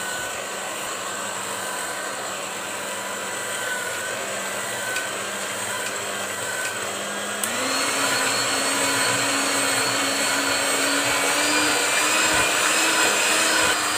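Electric hand mixer running steadily, its beaters whipping a thick ice cream base in a steel pan. About halfway through the motor pitch steps up and it gets louder as the speed is raised, and it stops abruptly at the end.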